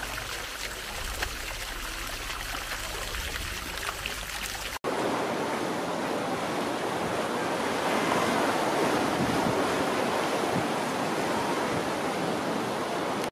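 Fountain water splashing steadily into its basin. About five seconds in, the sound cuts to a louder, even rushing noise.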